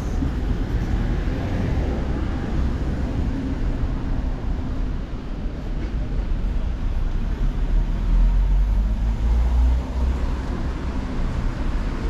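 City street traffic: car engines running and passing, a steady low rumble that swells for a couple of seconds about eight seconds in.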